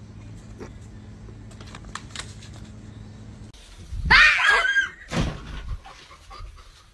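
A low steady hum cuts off, then a loud, wavering, high-pitched shriek about four seconds in, with a shorter cry about a second later.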